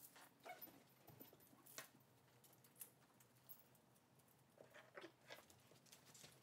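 Near silence in a small room, broken by faint scattered clicks and rustles of a dog leash and collar being handled and clipped on, with one sharper tick about two seconds in.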